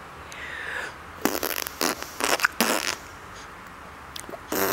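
A baby making sputtering mouth noises: a breathy sound at first, then a quick run of short noisy sputters.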